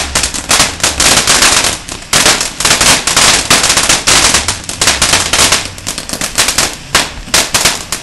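Ground fountain firework spraying sparks with rapid crackling pops, closely packed at first and thinning out over the last couple of seconds as it burns down.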